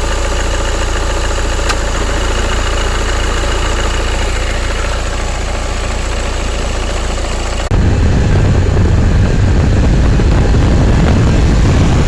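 Nissan Micra engine idling steadily. About two-thirds of the way through, the sound changes suddenly to a louder, deeper rumble.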